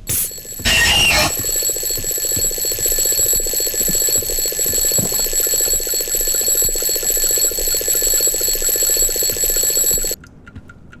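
Alarm clock ringing, a rapid rattling ring with steady high bell tones, and a brief loud burst about a second in. It cuts off suddenly near the end, and the clock's ticking is left.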